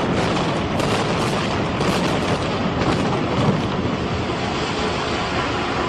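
High-rise building collapsing in an explosive demolition: a continuous, heavy rushing rumble of falling concrete and debris, with several sharp cracks in the first three seconds.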